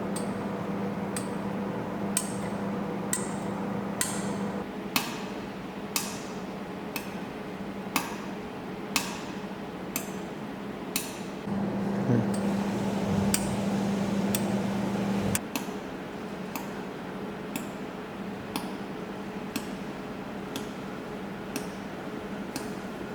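Jewelry laser welding machine firing single pulses, each a sharp snap, about once a second. A low steady hum from the machine runs for the first five seconds and again for a few seconds midway.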